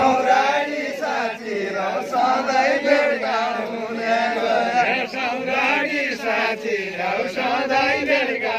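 Bajureli deuda, the Far-Western Nepali folk song, chanted by a group of voices together in a steady, repeating line.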